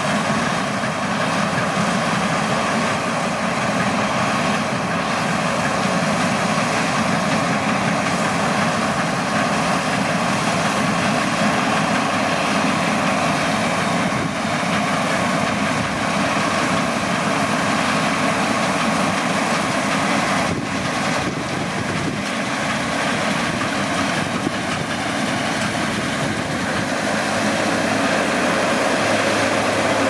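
Case IH Axial-Flow 8230 combine harvester running steadily under load while cutting wheat: a continuous engine and threshing drone.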